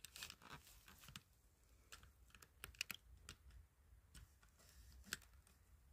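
Faint, irregular crackles and sharp clicks, like dry leaf litter and twigs shifting underfoot.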